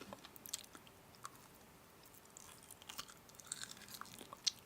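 Close-up chewing and biting: a person eating, with scattered small crunchy clicks, the sharpest one shortly before the end.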